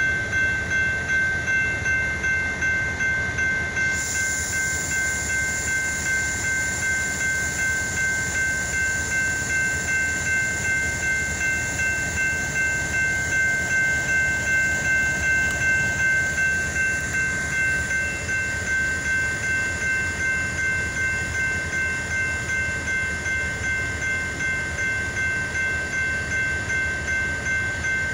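A freight train's boxcars rolling past with a steady rumble of wheels on rail. Over it comes an even, repeating ringing, about two strikes a second.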